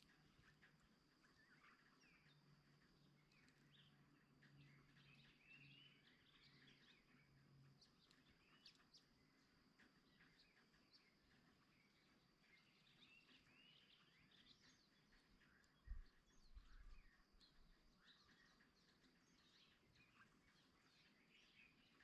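Faint, scattered chirps and calls of small songbirds, with a steady faint high whine beneath them and a brief low thud about three quarters of the way through.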